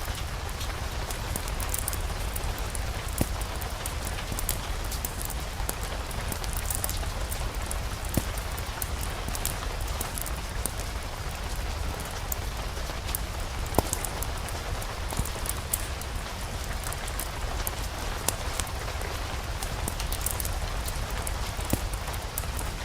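Steady rain sound with a constant low rumble underneath, scattered with many small crackling ticks and a few sharper pops from a fireplace fire.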